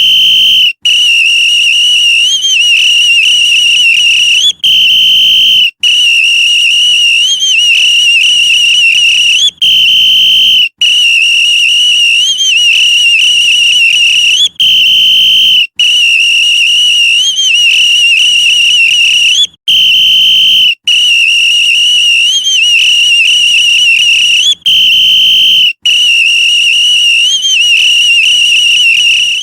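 Police whistle blown in a loud repeating pattern: a short steady blast, then a longer blast whose high pitch wavers. The pair repeats about every five seconds, six times over.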